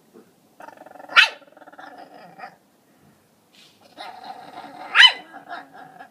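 A Pekingese vocalizing in two bouts of about two seconds each: a drawn-out whining sound, each broken near its middle by one sharp, loud bark.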